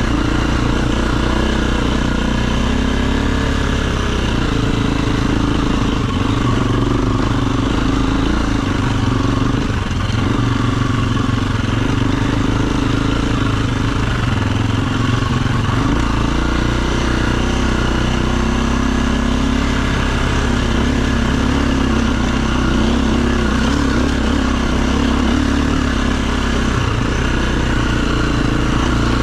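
Dirt bike engine running continuously under way, its speed shifting a little up and down as the throttle is worked.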